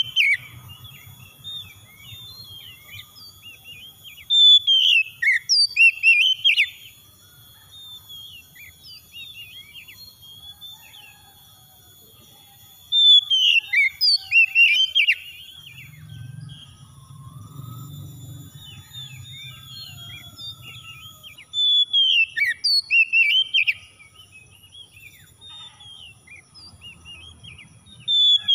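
Oriental magpie-robin (kacer) singing: loud bursts of rapid, varied whistled phrases lasting two or three seconds, repeated every several seconds, with softer chirps in between.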